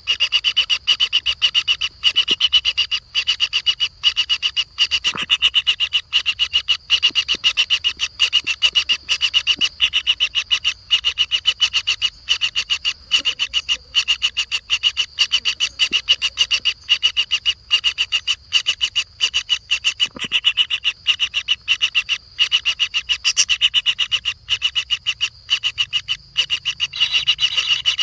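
A high-pitched animal call repeated as a rapid, steady train of short rasping pulses, continuing with only brief pauses.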